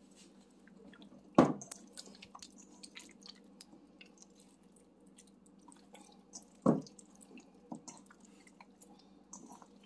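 Wet squelching and slapping of a hand kneading a thick yogurt marinade into raw chicken thighs in a stainless steel bowl, with many small irregular squishes and two louder thumps, about a second and a half in and again near seven seconds.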